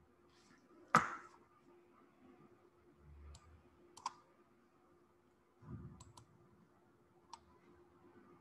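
Computer mouse clicks and small knocks at a desk: a louder knock about a second in, a soft thud near the middle, and several sharp single clicks, some in quick pairs. A faint steady hum runs underneath.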